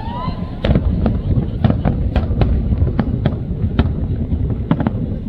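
Fireworks display: many sharp bangs and crackles in quick, irregular succession over a continuous low rumble, with crowd voices underneath.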